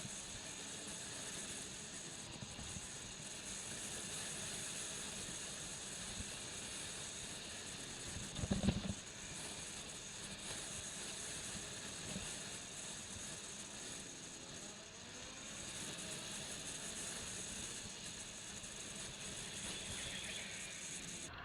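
Steady road and wind noise from a moving motorcycle, picked up by a helmet-mounted camera, with a brief louder rumble about eight and a half seconds in.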